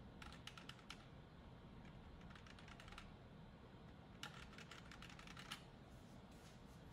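Computer keyboard's F2 key tapped repeatedly in three quick, faint bursts of clicks while the PC boots, to get into the BIOS setup.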